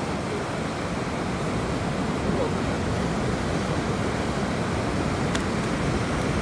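Ocean surf washing onto a sandy beach: a steady, even rush of breaking waves.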